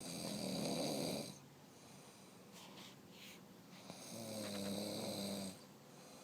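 A woman snoring in her sleep: two long snores about four seconds apart, each lasting a little over a second, with a faint breath between them.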